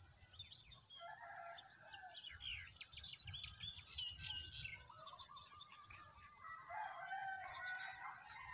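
Faint birds chirping and calling, several short calls and trills one after another, over a steady high-pitched buzz.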